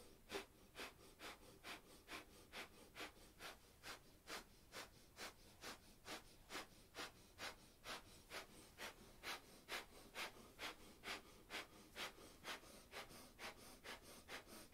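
Breath of fire: a steady run of quick, forceful exhalations through the nose, about two a second, faint.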